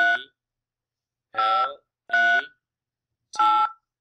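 Touch-tone (DTMF) keypad tones from a Skype dial pad sent down a phone call: three short two-note beeps at uneven gaps, after the tail of one at the very start. They are digits 5, 3 and 8, keyed in to spell a name into an automated phone directory.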